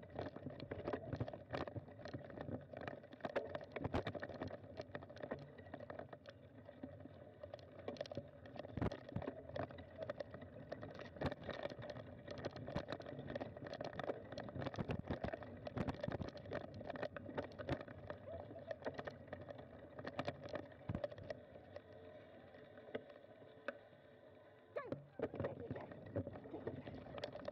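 Bicycle rolling slowly over a rough forest dirt trail, with a continuous irregular rattle and clatter of knocks as it goes over bumps. It goes briefly quieter a few seconds before the end, then there is a burst of knocks.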